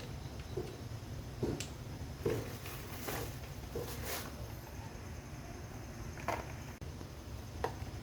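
Scattered light clicks and knocks of objects being handled, about seven in eight seconds, over a steady low hum.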